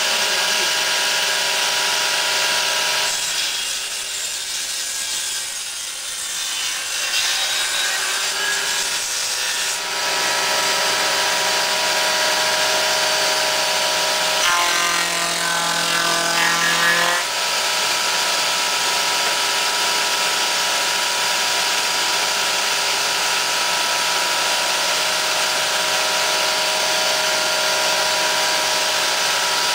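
Woodworking spindle moulder running steadily while it cuts a wooden workpiece on a pneumatically fed, automated table. About three seconds in the sound dips and changes for several seconds, and in the middle a pitched buzz lasts about two seconds.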